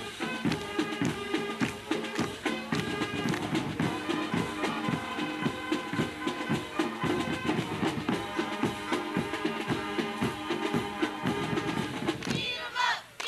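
High school marching band playing: brass and drums on an upbeat tune with a steady drum beat. The band stops about a second before the end, and voices start shouting.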